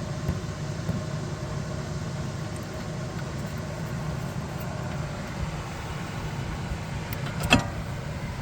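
A steady low mechanical hum, and one sharp metallic clink with a brief ring near the end, from hand tools and bolts while the caliper bracket bolts are being fitted.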